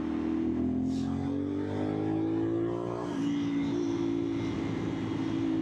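CFMOTO 450SR's parallel-twin engine pulling through an aftermarket exhaust with its silencer insert removed: the revs rise for about two and a half seconds, drop suddenly at an upshift about three seconds in, then hold steady.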